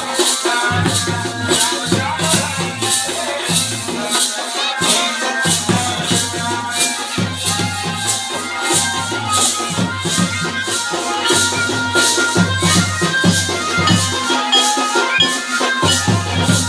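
Pahari folk music for a tandi geet, with a steady shaker-like beat over bass notes and a melody.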